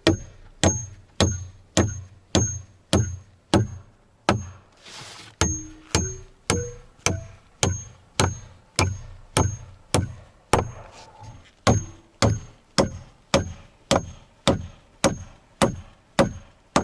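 Steady hammer blows driving a piece into a wooden workbench, about two to three a second, each with a short metallic ring; there is a brief break about four seconds in.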